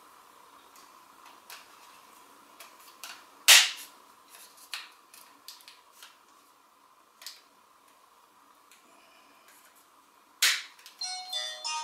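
A plastic pry tool working the seam of a dash cam's plastic case: scattered small clicks, with two sharp snaps of the case clips, one about three and a half seconds in and one near the end. Right after the second snap come a few short squeaks of plastic rubbing on plastic.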